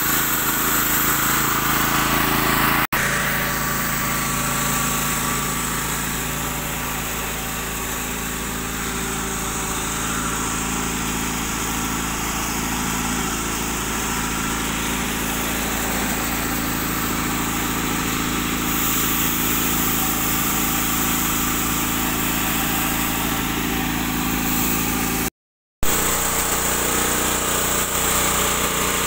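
Small engine powering a rice threshing machine, running steadily at constant speed.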